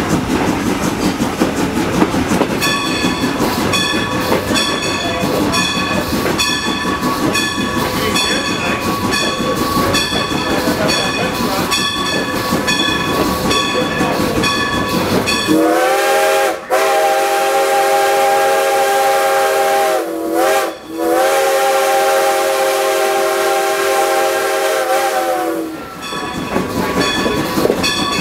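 Steam locomotive whistle blowing a short blast and then two long ones over the rumble and clickety-clack of the rolling passenger cars. Before the whistle, a bell rings steadily, about twice a second.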